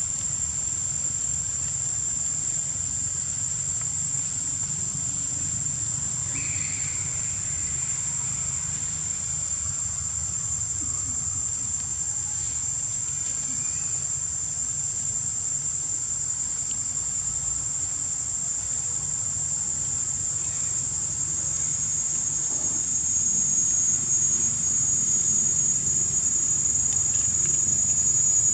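Insects droning in the forest: one steady high-pitched drone that never breaks, over a low rumble that gets a little louder near the end.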